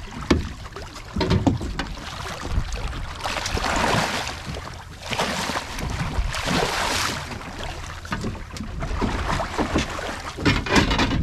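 Sea water splashing and sloshing at the side of a small boat as a hooked tope thrashes beside the landing net, with scattered knocks of gear on the hull and two longer rushes of splash or wind noise in the middle.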